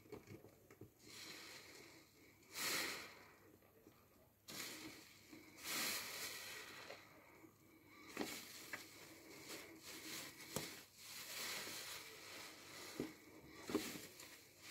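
A large soapy car sponge squeezed and kneaded in thick foam: wet squishing in irregular bursts, with a few short sharp clicks.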